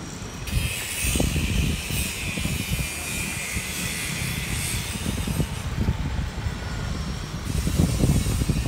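Wind rumbling on a phone microphone while riding a bicycle, with street traffic noise. A brighter hiss comes in about half a second in and fades out near the end.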